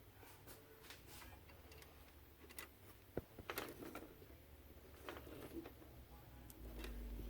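Faint scattered clicks and light knocks of screws and TV plastic parts being handled during reassembly, with one sharper click about three seconds in and short rustles around four and five seconds.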